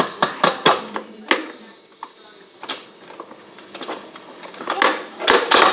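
Sharp clicks and knocks of hard objects being handled. There is a quick run of about five in the first second and a half, a few scattered ones after that, and a cluster of louder knocks near the end.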